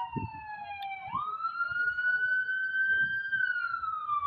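A siren wailing: one tone that slowly falls in pitch, jumps back up about a second in, climbs slowly and starts to fall again near the end, over low, uneven rumbling.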